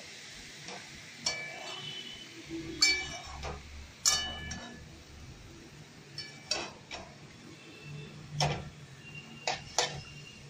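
A metal spoon clinking and scraping against a metal kadai as pumpkin leaves and potatoes are stirred. There are about nine irregular knocks, some ringing briefly.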